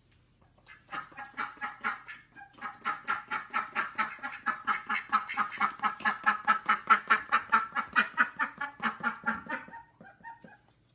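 Indian runner duck quacking in a fast, steady run of short calls, about five a second. The calls start sparse, build up over the first couple of seconds and stop abruptly about a second before the end.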